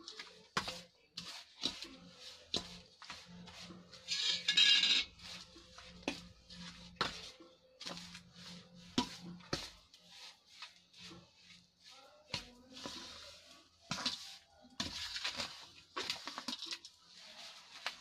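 A spoon scraping and knocking against a bowl while stirring a dry, crumbly mix of ground flaxseed, mawa and nut powders. The knocks come irregularly, with a longer, louder scrape about four seconds in.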